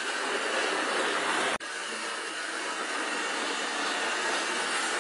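Model railway locomotive running along the track on a hardboard baseboard: a steady whirring, rushing noise, briefly cut off about one and a half seconds in.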